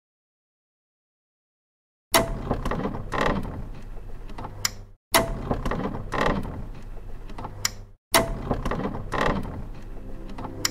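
Mechanical clicking and rattling, like gears or a ratchet working: the same roughly three-second sound starts sharply and plays three times in a row, after about two seconds of silence.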